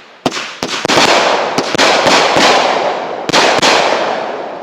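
A multi-shot consumer firework cake still firing: a string of sharp bangs, with a dense crackling hiss between them that fades toward the end.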